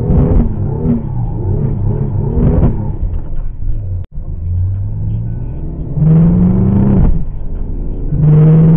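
A car's engine, heard from inside the car, revving in short pulsing blips while rolling slowly. It cuts out briefly about four seconds in, then accelerates hard in two loud pulls near the end, the first with a rising note.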